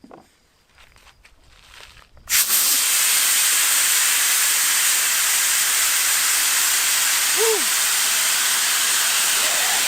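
A steady loud hiss like rushing or spraying water, starting abruptly about two seconds in, with one brief pitched chirp near the end.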